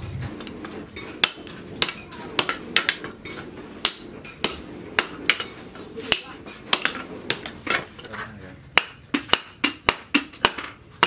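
Hand hammer striking a red-hot cleaver blank of leaf-spring steel on a cylindrical steel anvil block: sharp, ringing metal-on-metal blows, spaced unevenly at first, then a quicker steady run of about four a second near the end.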